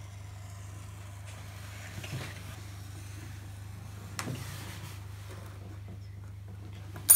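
A knife scoring painter's tape along a steel ruler: soft short scraping strokes about two and four seconds in, over a steady low hum. A sharp click near the end is the loudest sound.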